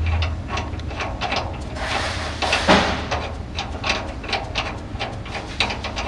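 Irregular clicks, knocks and scrapes of a metal threaded part being turned by a gloved hand into a pad-mount transformer's bushing, with a louder scrape nearly three seconds in. A low steady hum runs underneath.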